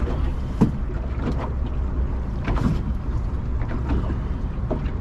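Steady low rumble of wind on the microphone and water around a drifting fishing boat, with a few light knocks from handling on board.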